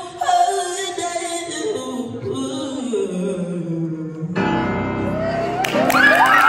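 A female vocalist sings with grand piano accompaniment, her closing line sliding down in pitch. About a second before the end, an audience starts cheering and whooping.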